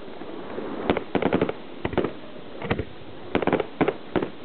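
Aerial firework shells bursting: a series of sharp bangs, some coming singly and some in quick runs of several, the densest runs about a second in and about three and a half seconds in.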